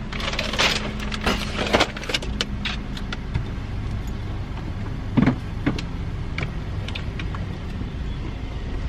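A car engine running steadily, with scattered clicks and handling noises and one louder thump about five seconds in.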